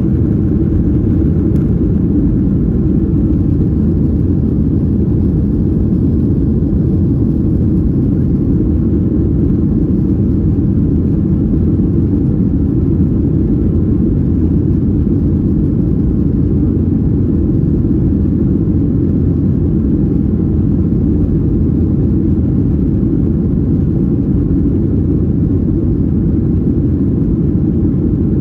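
Steady low rumble of a vehicle in motion, holding an even level throughout.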